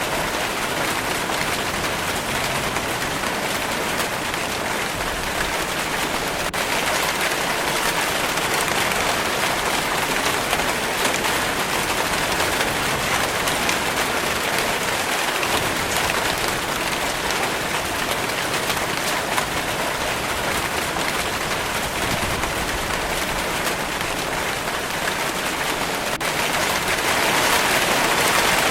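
Steady rainfall, an even hiss of many drops hitting a surface, growing a little louder near the end.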